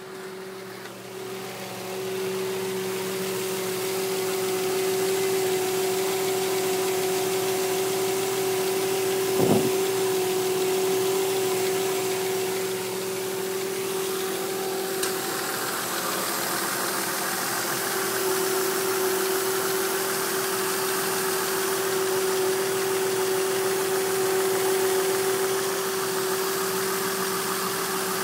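2005 Nissan Xterra making a steady, even buzz over the sound of its engine running. A single sharp knock is heard about nine seconds in.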